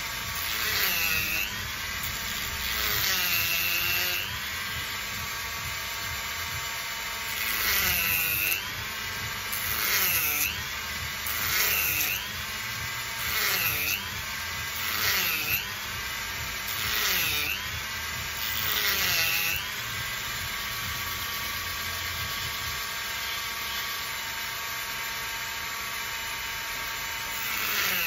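Handheld rotary tool engraving a coconut shell: a steady high motor whine whose pitch dips and recovers each time the bit bites into the shell, every second or two. It runs steadier near the end.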